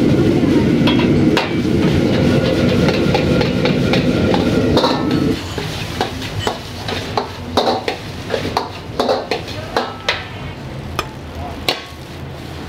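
Stir-frying in a wok: a loud steady rush of frying for about the first five seconds, which then drops off. Quick sharp clanks of a metal utensil against the wok run through it and become more prominent after the drop.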